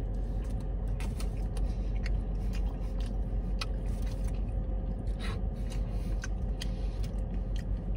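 A man chewing a mouthful of burrito, with scattered small mouth clicks, over a steady low hum inside the car.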